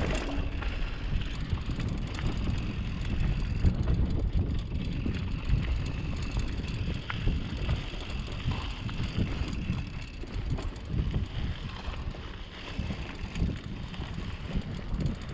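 Mountain bike riding downhill on a dry, rocky dirt trail: wind buffets the microphone over uneven tyre rumble and the rattle and clatter of the bike.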